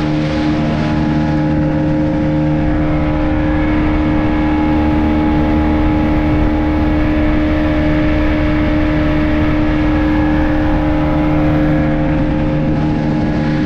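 Speedboat engine running steadily at constant pitch, a droning engine tone over a steady rush of noise.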